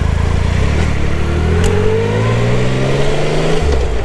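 Motorcycle engine accelerating, its pitch climbing steadily for about three seconds, then dropping suddenly near the end as it shifts up a gear.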